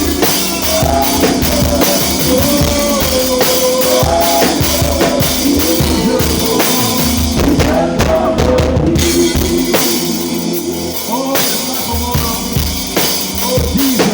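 Live worship band playing a groove: a drum kit with kick, snare and rimshots under a wandering melodic line. Near the middle the cymbals drop out briefly, then the bass thins out for a couple of seconds before the full groove returns.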